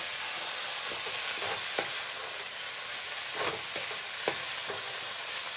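Salmon, red peppers and onions sizzling in a frying pan, with a steady hiss. A wooden spatula scrapes and taps against the pan several times as the hash is stirred.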